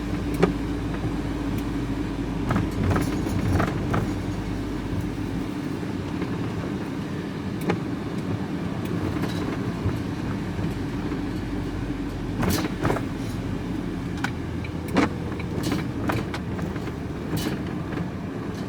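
Vehicle engine and road noise heard from inside the cab while driving, with the engine note dropping about five seconds in. Scattered sharp clicks and rattles come from a load of aluminium bicycle wheels shaking in the front.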